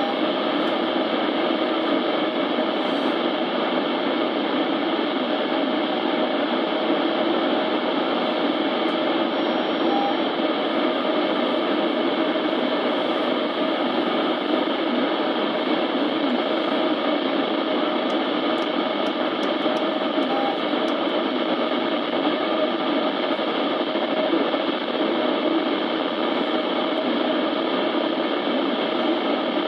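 Weather alert radio's speaker hissing with steady static.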